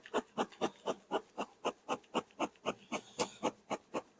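Quick, regular rubbing strokes, about four a second, typical of a bee brush sweeping bees off the hive so a box can be set on.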